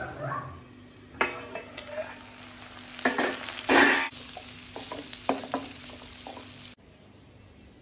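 Spatula stirring and scraping in a frying pan as prawns, carrots and green peas fry, with sizzling and a few sudden strokes, the loudest two about three and four seconds in. The sound drops off abruptly near the end.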